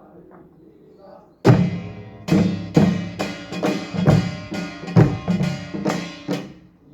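Korean pungmul percussion striking a rhythmic pattern. About a dozen sharp, ringing hits come roughly two to three a second, starting suddenly about a second and a half in and stopping near the end.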